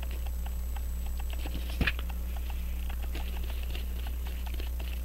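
A pocket watch movement is turned over and clamped back into a metal movement holder, with one sharp click a little before two seconds in. Underneath runs a faint, fast, even ticking of about five ticks a second, over a low steady electrical hum.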